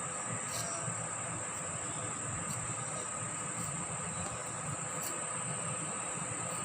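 Insects trilling in a steady, unbroken high-pitched chorus, with a low rumble underneath.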